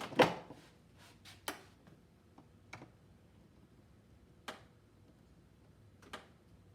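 A handful of separate sharp metallic clicks, the loudest right at the start, from a half-inch split beam torque wrench being handled and pulled to its 100 ft-lb setting.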